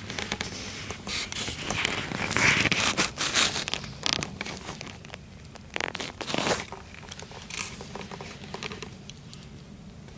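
Rustling, crinkling and scraping of camouflage clothing and fabric as the camera is handled and moved about inside a small hunting blind, busiest in the first few seconds and again about six seconds in.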